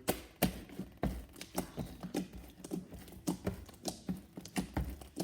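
Slime being kneaded fast by hand, oiled with baby oil, making wet clicks and pops about twice a second.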